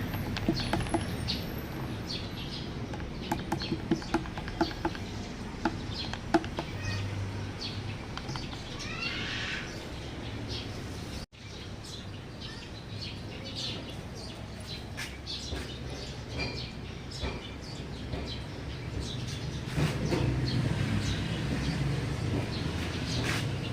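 Scattered light clicks and taps over a steady low hum, with a short run of bird chirps about nine seconds in.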